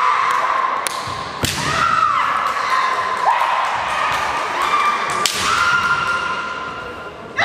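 Kendo fencers' long drawn-out kiai shouts, one after another, cut by several sharp knocks of bamboo shinai and feet on the wooden floor, the loudest about a second and a half in and again just past five seconds.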